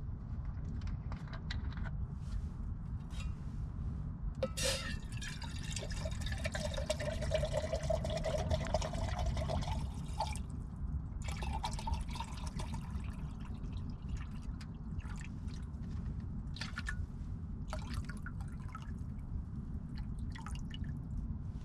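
Water being poured into a pot for boiling, from about four and a half to ten seconds in, its pitch rising slightly as the pot fills, then a short second pour. Under it there is a low steady rumble and scattered small clicks.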